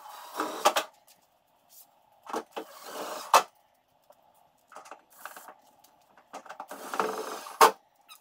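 Handheld cordless power tool run in about four short bursts, each a second or less, with sharp clicks among them.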